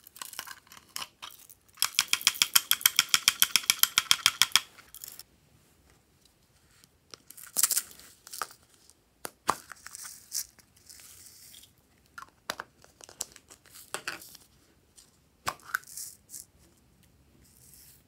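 Plastic toy container being twisted open: a fast, even ratcheting of about ten clicks a second for roughly three seconds, then scattered plastic clicks and rustling as the lids and cups of sequins are handled.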